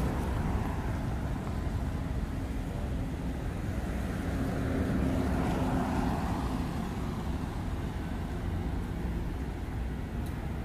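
Street traffic: a steady low rumble of vehicles, with one engine growing louder as it passes about halfway through.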